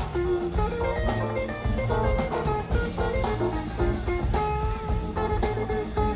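Background music: a jazzy guitar-led instrumental with plucked guitar notes over a drum kit.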